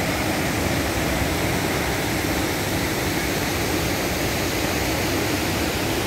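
Waterfall: water falling and rushing in a steady, unbroken noise.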